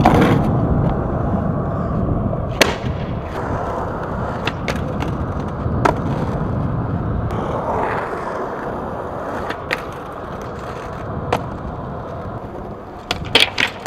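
Skateboard wheels rolling on concrete in a steady rumble, broken by several sharp clacks of the board's tail and trucks hitting the ground, with a quick run of clacks near the end.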